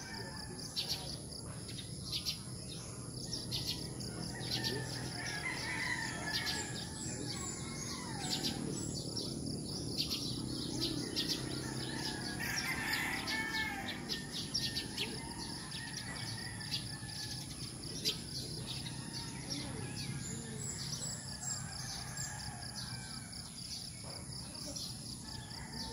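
Rural morning birdsong: many small birds chirping, with a steady thin high tone behind them. A rooster crows in the distance around the middle.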